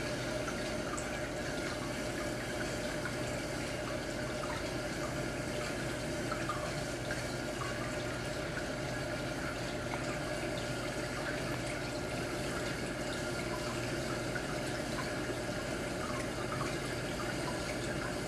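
Steady running water from a saltwater aquarium's circulation, with a constant low pump hum underneath.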